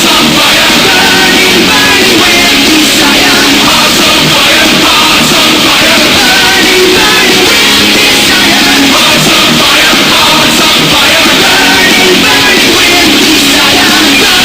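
Loud rock music with vocals, played at near full volume.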